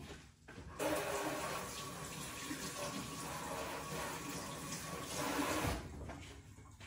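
Kitchen faucet running as hands are rinsed under it, the water turned on about a second in and shut off near the end.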